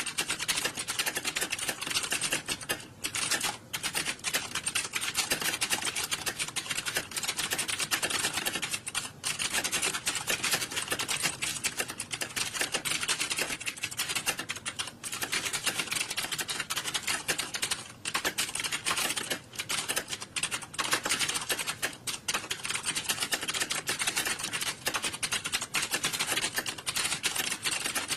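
Many computer keyboards being typed on at once: a dense, continuous clatter of key clicks with hardly a pause.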